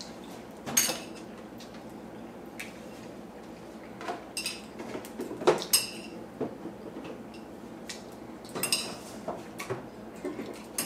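Eating utensil clinking and scraping against a bowl in a scattered series of short taps while noodles are eaten from it, over a steady low hum.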